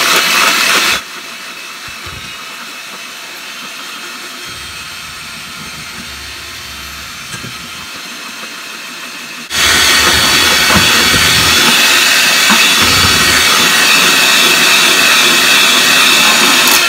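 Handheld electric mixer whirring as its beaters whip egg whites and sugar into meringue. The whir drops to a quieter level about a second in and comes back loud a little past halfway.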